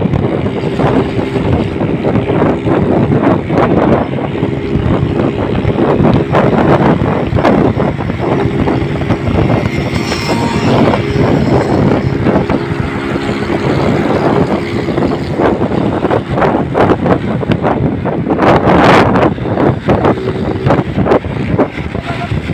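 Rickshaw engine running hard at road speed, with wind buffeting the microphone. A brief louder rush about three-quarters of the way through.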